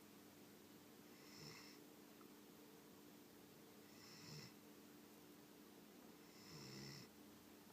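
A dog snoring quietly, with three snores about two and a half seconds apart.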